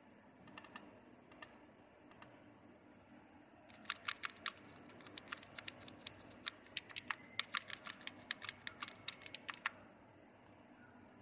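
Computer keyboard keys pressed: a few scattered clicks, then a quick, uneven run of key presses from about four seconds in until near the end.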